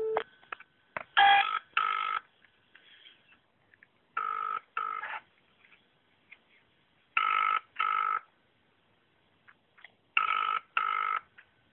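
Telephone ringback tone heard down a phone line: four UK-style double rings, each a pair of short rings, about three seconds apart, as the call waits to be answered.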